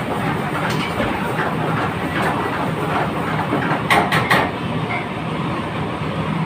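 Commercial kitchen background noise: a steady mechanical rumble with a low hum, and a quick run of sharp metal clinks about four seconds in.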